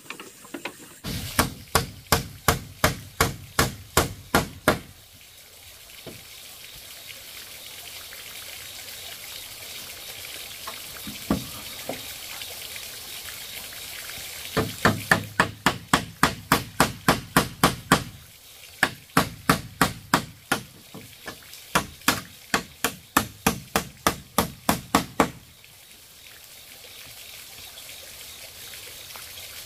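Hammer striking nails into a shed's wooden posts and bamboo wall: three runs of quick, even blows, about three a second, with a single knock between the first two runs.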